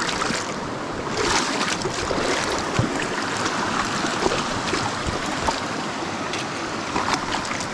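Mountain stream water rushing and splashing steadily over rocks, with a few brief sharper splashes or knocks.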